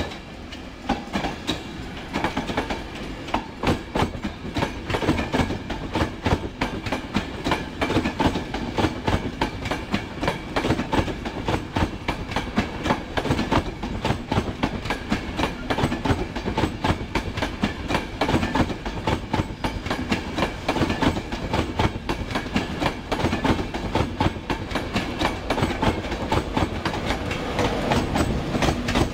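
An East Coast InterCity 225 train of Mark 4 coaches rolls past, its wheels clacking again and again over rail joints and pointwork. The Class 91 electric locomotive at the rear comes alongside near the end, where the sound grows a little louder.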